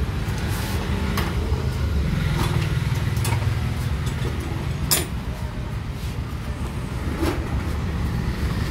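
An engine running steadily at idle, a low even rumble, with a few sharp metallic knocks over it, the loudest about five seconds in.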